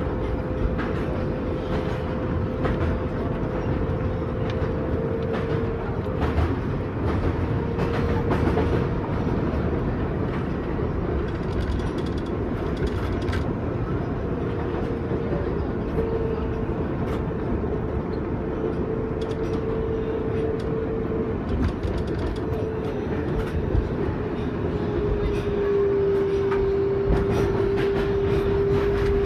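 Kawasaki R188 subway car heard from inside, running at about 30 mph with a steady rumble of wheels on track and scattered clicks from rail joints. Over it runs a thin whine from the Bombardier MITRAC AC traction motors, which steps down in pitch and gets louder near the end as the train slows.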